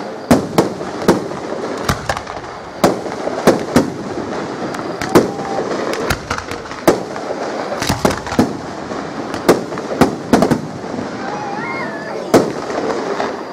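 Aerial fireworks display: sharp bangs of bursting shells at irregular intervals, some in quick clusters of two or three, with a steady wash of noise between them.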